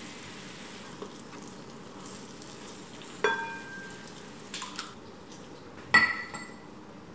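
Food sizzling steadily in a hot frying pan, with two sharp, ringing clinks of a utensil, about three seconds in and again near six seconds, and a few lighter ticks between.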